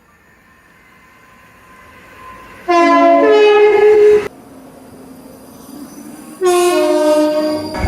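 ScotRail Class 334 electric multiple unit sounding its two-tone horn twice. The first blast lasts about a second and a half, a few seconds in, and the second comes near the end. Each blast steps between two notes, with the train's running noise growing between them.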